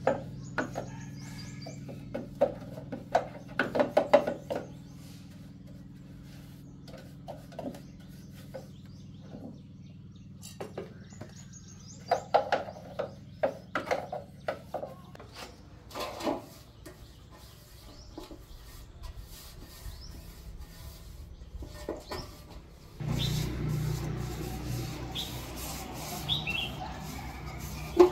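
Intermittent knocks, clicks and scrapes of metal concrete-mould parts being handled and worked by gloved hands, over a low steady hum. Birds chirp briefly now and then, and the hum grows louder a few seconds before the end.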